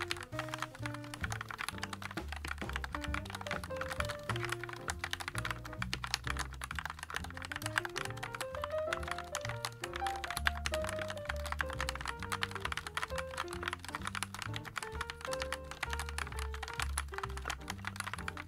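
Continuous fast typing on a JAMESDONKEY RS6 mechanical keyboard with Gateron G Pro switches and PBT keycaps, a stream of keystroke clacks, with background music playing under it.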